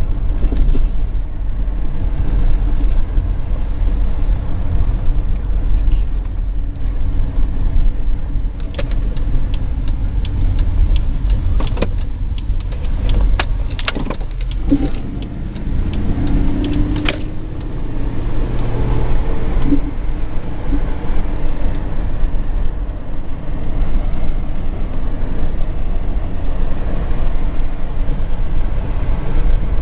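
A car's engine and tyre noise heard from inside the moving car, a steady low rumble. A cluster of sharp clicks and knocks comes through about twelve to seventeen seconds in.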